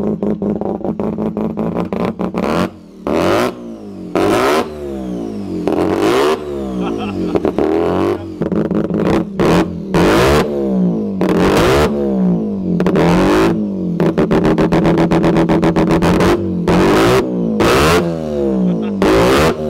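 Peripheral-ported Mazda 13B rotary engine being blipped a dozen or so times, each time rising sharply to a loud blast and falling back toward idle. Its exhaust is firing through a traffic cone held over the tailpipe as a makeshift megaphone.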